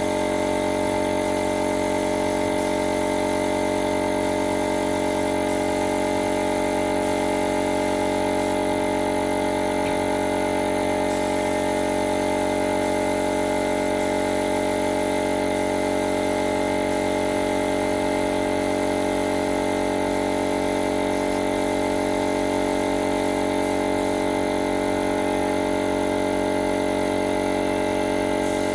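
A machine running with a steady, even hum that does not change in pitch or level.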